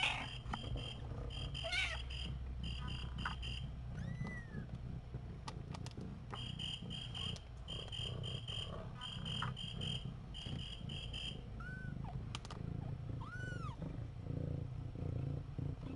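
A mother cat purring in a steady low rumble as she settles over her kittens to groom them, with a few short kitten mews, one about four seconds in and two more near the end.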